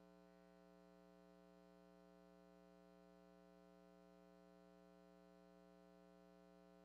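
Near silence: a faint, steady, unchanging hum.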